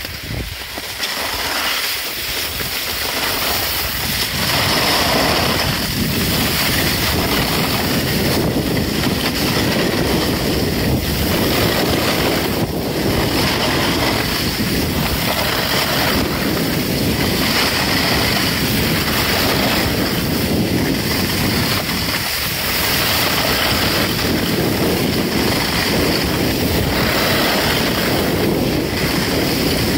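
Wind rushing over a handheld phone's microphone during a downhill ski run, with the skis hissing and scraping over packed snow. The rush builds over the first few seconds, then swells and dips every couple of seconds.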